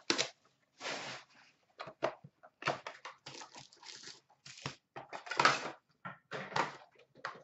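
Plastic wrap crinkling and tearing as a hockey-card hobby box is unwrapped and opened, then the card packs rustle as they are pulled out and stacked. It comes as irregular bursts, the loudest about five and a half seconds in.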